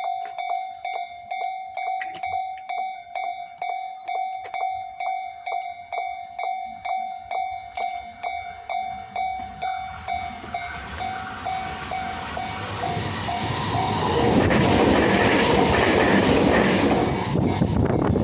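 Japanese level-crossing warning bell dinging about twice a second, then a train passing over the crossing, its running noise building and growing loud about 14 seconds in and drowning out the bell.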